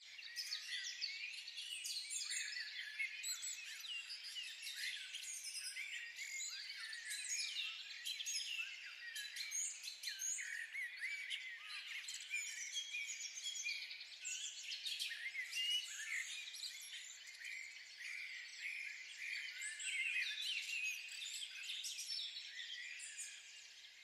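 A dense chorus of many small birds chirping and calling at once, high-pitched and overlapping throughout.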